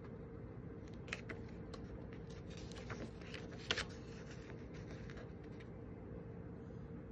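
Paper rustling and a few crisp flicks as a glossy booklet page is turned by hand, the sharpest flick about three and a half seconds in, over a steady faint hum.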